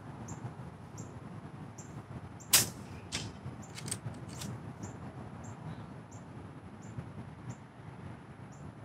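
Brocock Ghost HP .22 PCP air rifle firing a single shot, a sharp crack about two and a half seconds in, followed by a few lighter clicks as the side lever is worked to chamber the next pellet. A faint high chirp repeats about twice a second throughout.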